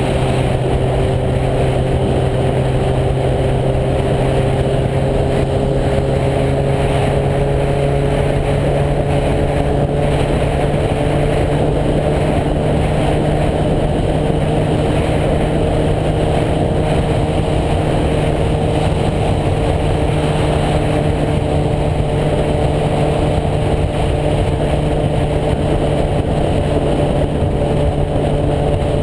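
Suzuki GSX-R1000's inline-four engine running steadily at highway cruising speed, its pitch creeping up slightly partway through, with wind rushing over the microphone.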